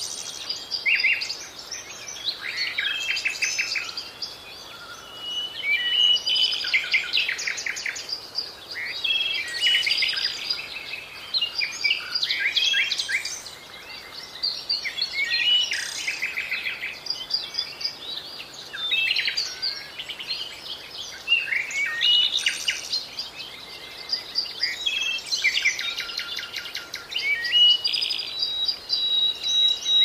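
Songbirds singing: phrase after phrase of chirps, rapid trills and thin whistles, with short pauses between.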